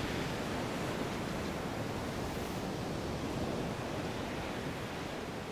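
Ocean surf breaking and washing up a sandy beach: a steady wash of noise.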